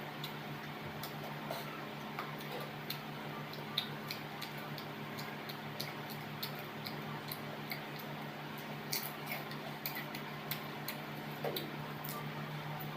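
Close-up eating sounds: irregular crisp clicks and smacks of chewing, over a steady low hum.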